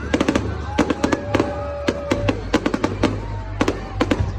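Aerial fireworks going off in quick succession, about a dozen sharp bangs and crackles, some in tight clusters, over a low rumble.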